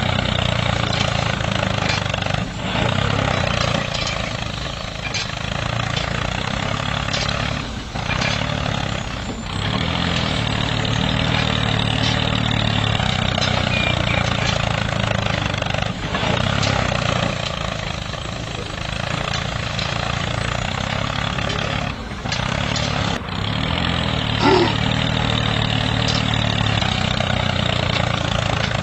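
Miniature tractor's small motor running steadily as it pulls a cultivator through sand: an even low hum with a whirring rattle, dipping briefly a few times. A short sharp sound stands out about 24 seconds in.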